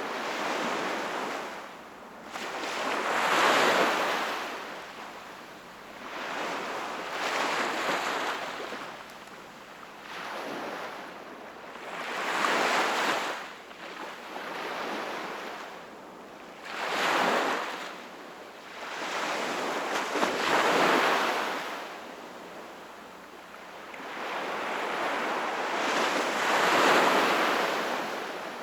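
Sea waves washing onto the shore, each one rising and falling away about every four seconds in an unbroken rhythm.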